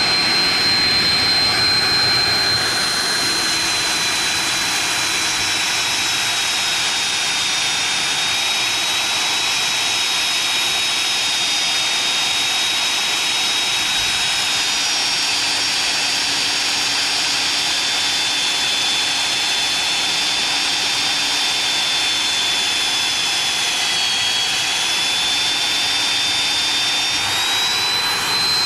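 Magnetic drill running with a steady high whine as its cutter bores through a thick-walled steel tube. The pitch sags a little about three quarters of the way through, then rises back.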